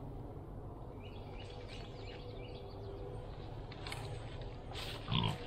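Quiet woodland background with soft rustling in dry leaf litter and brush during a slow stalk, and a string of short faint chirps in the first half. A louder short rustle or thump comes about five seconds in.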